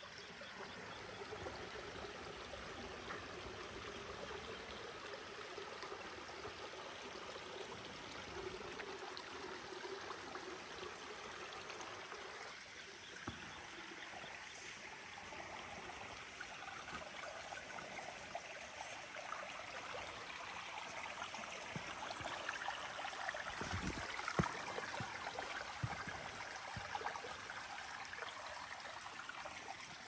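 Running water of a small rain-swollen stream trickling over rocks, a steady rush that grows a little louder past the middle, with a few light knocks about two-thirds through.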